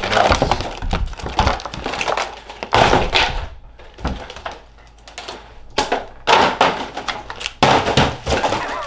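Clear plastic packaging crinkling and rustling in irregular bursts as it is shaken and crumpled, with a few knocks from a cardboard box being handled.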